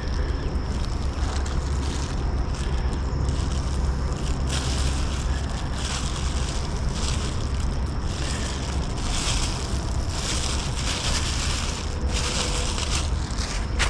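Wind buffeting the microphone as a steady low rumble, with a hiss of falling rain that swells and fades in surges from about four and a half seconds in.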